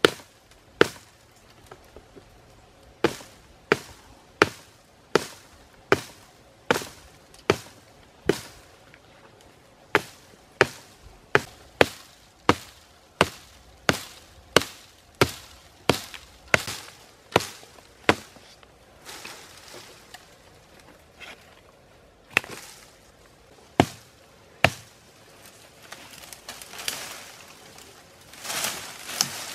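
A hand-held sharp stone chopping at the base of a sapling: a long run of sharp strikes, about one or two a second, with short pauses. Near the end the strikes give way to a rustle of leaves and twigs as the stem is gripped and bent.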